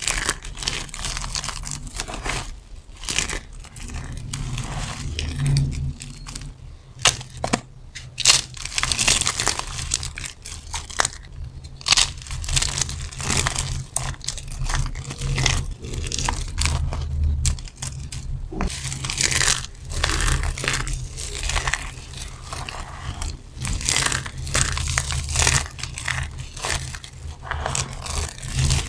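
Dry soap shavings crushed and rubbed between the fingers, giving dense, irregular crunching and crinkling with sharp crackles.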